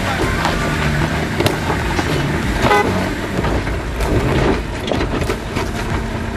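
A Range Rover P38's engine labouring and revving up and down as it crawls up a loose rocky slope, with tyres crunching over stones and many sharp knocks of rock under the wheels. A short high-pitched squeal or call sounds once, a little under three seconds in.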